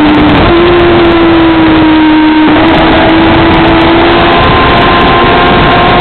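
Motorcycle engine running at high revs on track, its note held fairly steady with a step up in pitch about half a second in, under loud wind rush on the onboard camera's microphone.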